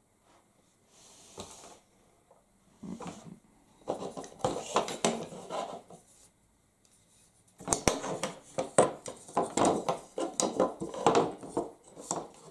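Carbon-fibre shooting-stick sections clicking and clattering against each other and a wooden tabletop as they are handled and fitted together. The knocks come in two spells, the second longer and louder.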